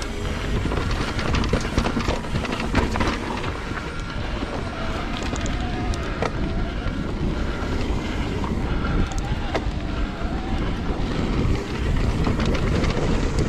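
Orbea Rise electric mountain bike riding fast down a dirt singletrack: tyres rolling over dirt, chain and frame rattling with many small knocks from the rough trail, and wind rushing over the microphone.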